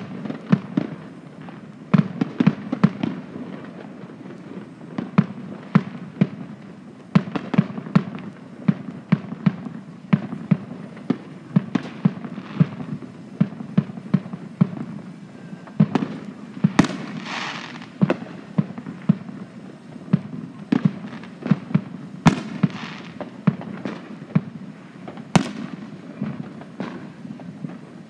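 Many consumer fireworks going off: irregular bangs and pops, at times several a second, with a hiss lasting about a second around seventeen seconds in.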